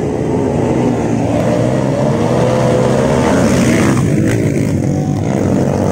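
Motocross dirt bike engines running on a dirt track, their pitch rising and falling as they are revved, with a bike passing close about four seconds in.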